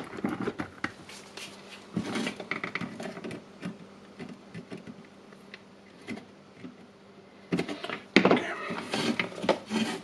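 Small clicks, taps and rattles of plastic and metal parts being handled: the new brush holder and carbon brushes being fitted with their leads. The taps come in a cluster about two seconds in and a denser run in the last couple of seconds.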